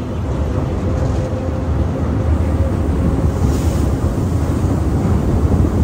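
Passenger train running across a steel truss bridge: a loud, steady low rumble of wheels on rail and bridge, with wind buffeting the microphone held out of the moving coach.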